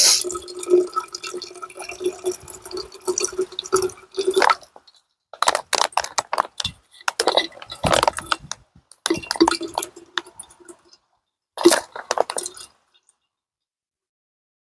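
Lake water dripping and trickling out of a Sawyer Mini squeeze filter into a container: a steady trickle at first, then several short spurts. The new filter's flow is still slow.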